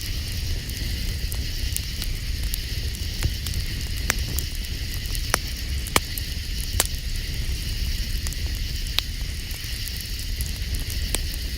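Campfire crackling, with sharp pops every second or so over a steady hiss and low rumble.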